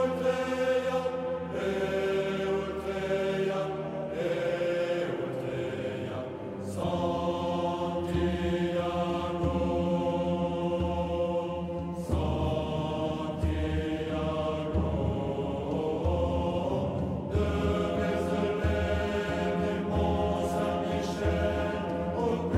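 Voices singing a slow, chant-like song with long held notes and a low bass underneath.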